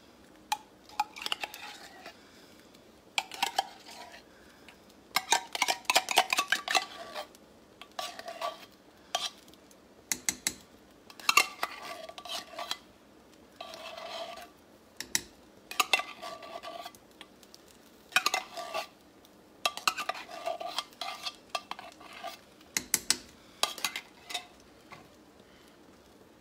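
A spoon scraping and clinking inside a metal soup can as condensed cream of chicken soup is emptied into a pot of chicken and dumplings, along with stirring in the pot. The clinks come in bursts every second or two, each with a short metallic ring.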